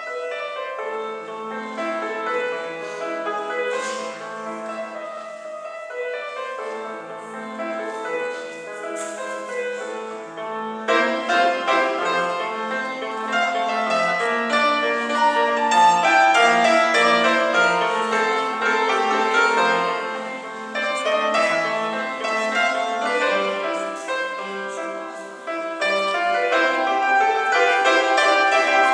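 Grand piano played solo, a flowing passage of many notes that grows louder about eleven seconds in.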